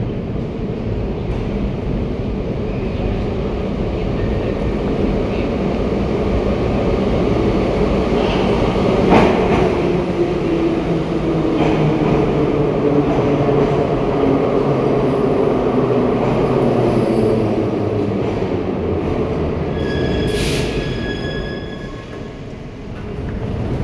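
Metro train running on the rails with a steady rumble and a whine that slowly falls in pitch as it slows. A brief high squeal comes near the end, then the noise drops away.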